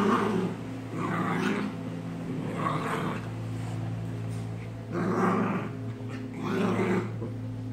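Dogs play-fighting, growling in short gruff bursts, five in all, roughly every second or two, over a steady low hum.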